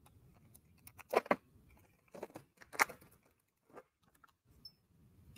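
Clear plastic packaging bag crinkling in short bursts as it is handled, loudest about a second in and again near three seconds.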